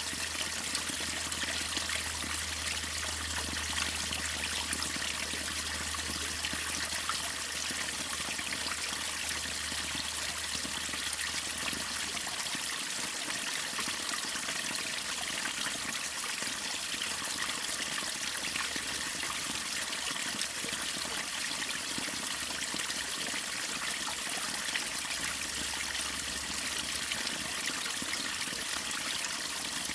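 Waterfall water rushing steadily, an even bright hiss with no pauses. A faint low rumble underneath drops away about twelve seconds in and comes back near the end.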